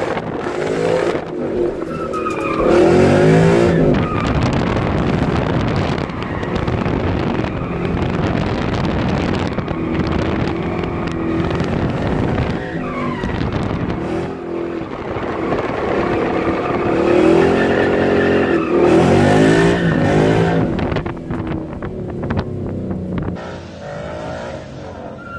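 2014 Mustang GT's 5.0 V8, breathing through a Roush cat-back exhaust, revving hard and falling again and again while drifting, with tyres squealing and skidding, heard from inside the cabin. Near the end the sound cuts to a quieter car drifting at a distance.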